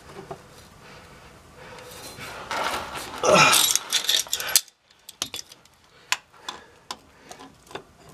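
Metal tools and hands working at a Jeep transfer case shift linkage. There is rustling and a loud burst with a falling pitch about three seconds in. After an abrupt cut, a run of short, sharp metallic clicks and taps follows as locking pliers (vice grips) are handled against the linkage.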